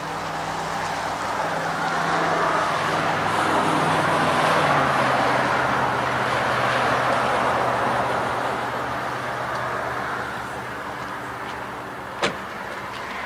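Metrolink F59PH diesel locomotive approaching slowly. Its engine note drops to a lower pitch about five seconds in as the throttle is eased, over a steady rush of running noise. A single sharp click comes near the end.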